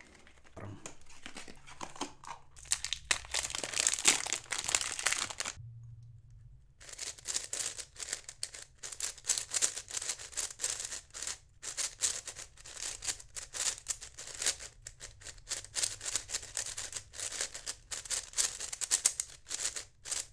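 A YJ YuChuang V2 M magnetic 5x5 speed cube being turned quickly by hand: a rapid, continuous run of plastic clicking and clacking as its layers turn. It turns fast and smoothly. In the first few seconds the cube is handled out of its cardboard box with rustling and scraping, and there is a brief pause about six seconds in.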